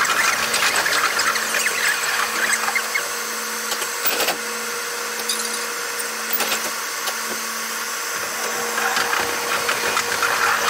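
A train's running sound sped up eightfold: the rail and motor noise heard from the cab becomes a dense high hiss crowded with rapid clicks and squeals, over a faint steady whine.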